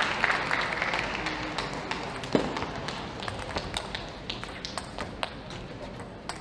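Table tennis ball clicking sharply and irregularly off the bats and table during a rally, with one louder knock about two seconds in. Applause from the previous point dies away over the first second or two.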